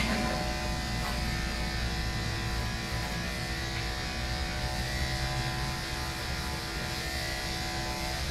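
Corded electric dog-grooming clippers running with a steady, even buzz while clipping a dog's short coat around the head and neck.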